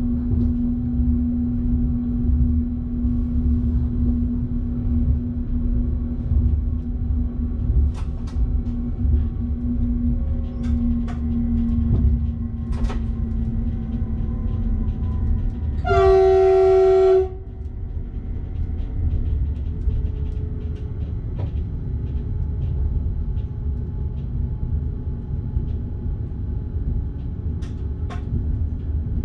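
Electric passenger train running, heard from the driver's cab: a steady rumble with a motor hum and scattered clicks. About halfway through, the train horn gives one blast of just over a second, the loudest sound here.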